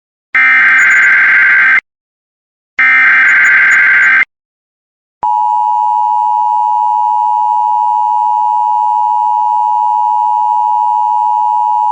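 Emergency Alert System SAME header: the last two of its three bursts of digital data tones, each about a second and a half long with a second's gap between. About five seconds in, the EAS two-tone attention signal starts and holds steady; it opens an EAS test message.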